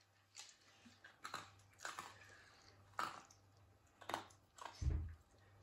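A small dog chewing dry food pieces from a hand, with about six sharp crunches spaced roughly a second apart. A dull thump sounds a little before the end.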